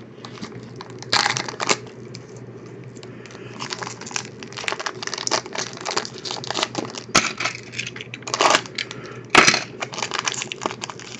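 Crinkling and tearing of a trading card box's plastic wrapping, with scattered small clicks and handling knocks. The loudest crinkles come about a second in and again near the end, over a steady low hum.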